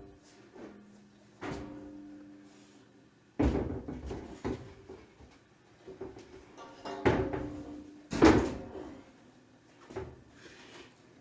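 Several heavy knocks and thuds, the loudest about three and a half, seven and eight seconds in, each leaving a short metallic ring: a 14-gauge sheet-steel work surface being shifted and set down into place.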